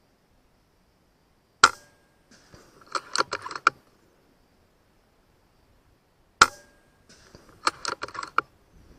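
Two shots from an FX Impact M4 PCP air rifle firing slugs, each a single sharp crack, the first under two seconds in and the second about five seconds later. About a second after each shot comes a quick run of mechanical clicks, the action being cycled to load the next slug.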